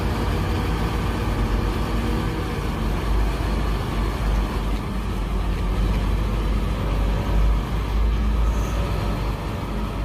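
Diesel engine of a SANY truck crane running steadily with a deep low rumble while it works the hydraulics to raise the boom.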